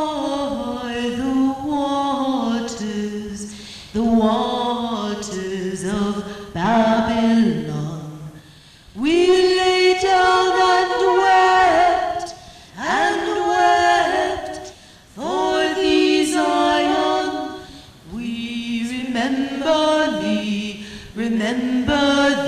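Unaccompanied singing, chant-like, in long held phrases with short pauses for breath between them.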